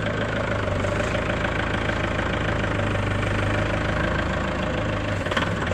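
Automatic chain link fence machine running with a steady mechanical hum and a steady mid-pitched tone, and a few light clicks about five seconds in.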